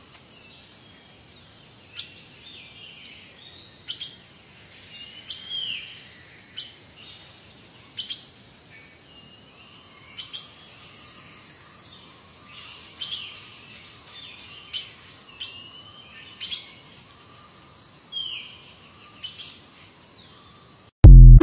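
Birds chirping and calling: short chirps and a few falling whistles, with sharp clicks every second or two. A short, very loud low thump comes near the end.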